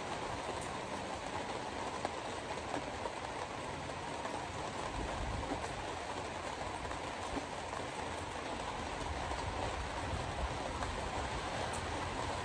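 Hard rain on a moving car with the steady hiss of tyres on a wet road, scattered faint ticks of drops, and a low rumble from the car that grows about halfway through.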